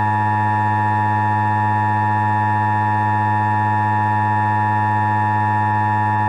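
Emergency Alert System attention signal: a loud, buzzy two-tone alert tone that begins abruptly and holds steady at one pitch.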